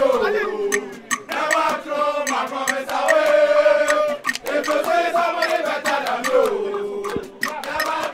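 A crowd of supporters singing a chant together in long sung lines, with sharp claps in between.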